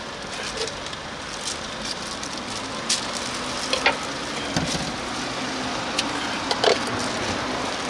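Food sizzling on a hot pan: a steady frying hiss, with a few sharp taps of metal utensils.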